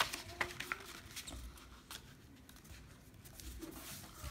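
Folding paper rustling and crackling as hands press and smooth glued sheets flat on a table, with a couple of sharp little clicks in the first half second and lighter scratchy rustles after.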